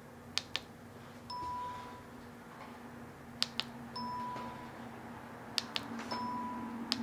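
ProStitcher longarm quilting machine recording points: a quick pair of clicks from the handlebar's mark button, then a short single-pitch confirmation beep about a second later, three times over, with one more click near the end. A low steady hum runs underneath.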